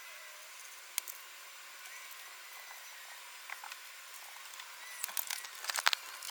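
Light handwork sounds on a wooden board over a faint steady hiss: a sharp tap about a second in, a few small ticks, and a cluster of scratchy rubbing near the end.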